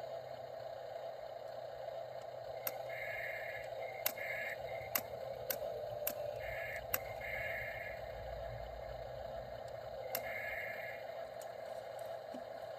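Small electric drive motor and gearing of a radio-controlled dump truck running steadily, with several short higher-pitched servo whines and a few sharp clicks.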